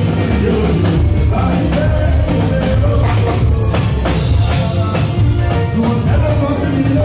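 Live band playing amplified dance music with a steady beat and strong bass: keyboards, electric guitar and drums, with a singer on the microphone.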